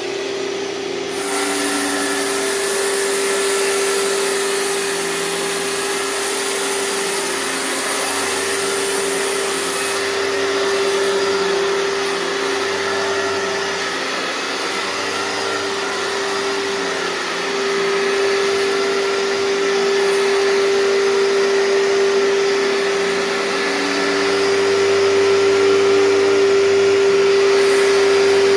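Hoover TurboPower 5000 canister vacuum running, loud, with a steady high motor whine over a strong rush of air. The loudness swells and dips a little.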